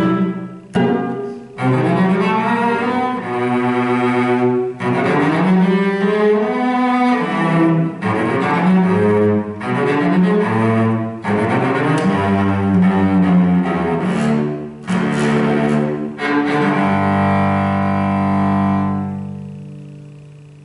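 Solo cello played with the bow: a few short, separated notes, then a continuous line of moving bowed notes, closing on a long held low note that dies away near the end.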